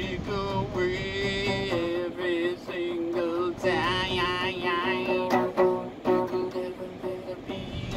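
A man singing while strumming an acoustic guitar inside a car's cabin, with a wavering held note about four seconds in.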